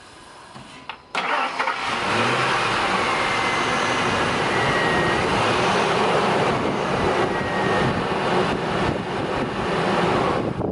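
A 2001 Ford Expedition's 4.6L Triton V8 cranks briefly and catches about a second in, then runs steadily. It starts because the genuine Ford key carries a properly programmed anti-theft chip.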